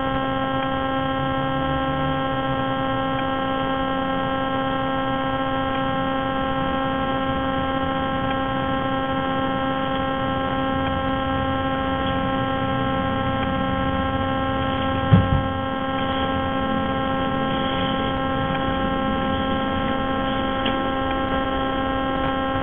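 Steady electrical hum made of many evenly spaced tones, with one sharp thump about two-thirds of the way in.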